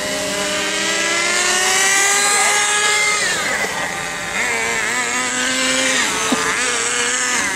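Electric motors and rotors of a twin-rotor RC helicopter whining in flight. The pitch climbs steadily over the first three seconds, then drops and wavers up and down as the throttle changes.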